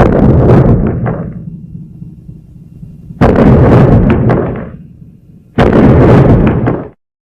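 Three heavy booming impacts, a few seconds apart, each dying away in a low rumble; the last one cuts off abruptly.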